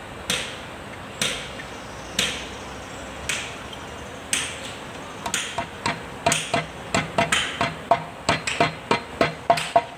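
Hammer blows driving a new oil seal into the bore of a rotary tiller's chain case. The blows come about once a second at first, then quicker, lighter taps from about five seconds in, each with a short metallic ring.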